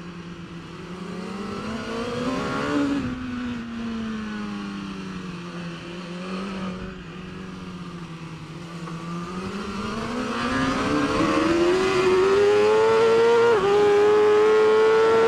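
BMW S1000RR superbike's 999 cc inline-four engine, heard from onboard. It runs low and fairly steady through a slow section with a brief blip. It then revs up hard as the bike accelerates, getting louder, with a quick upshift near the end.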